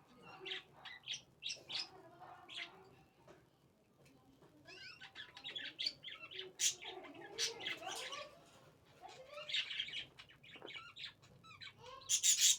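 Birds chirping in quick repeated bursts, with a short lull about a third of the way through.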